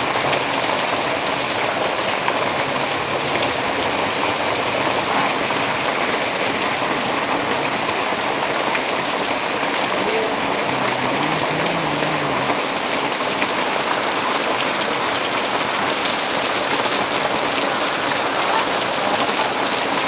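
Heavy rain pouring steadily onto a road and puddled ground, a dense, even hiss that holds the same level throughout.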